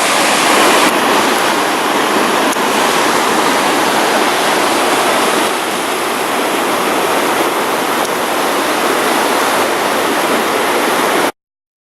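Rushing water of a mountain stream, a steady loud rush that cuts off suddenly near the end.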